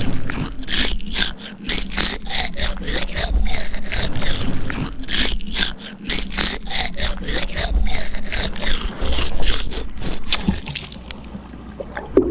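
Wet mouth sounds heard from inside the mouth: saliva, tongue and lips clicking and smacking in a quick, irregular run of wet clicks that thins out about eleven seconds in.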